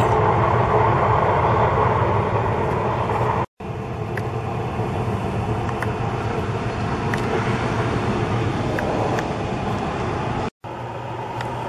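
Traeger pellet grill running, a steady whooshing fan noise with a low hum beneath it and a few faint ticks now and then.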